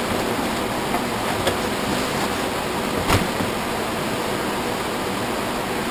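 Steady hiss of background noise, with a soft knock about three seconds in.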